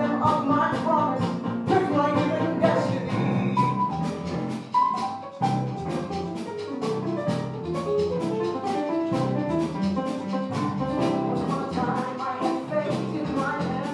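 Music from a musical theatre song: a band playing with a steady drum beat.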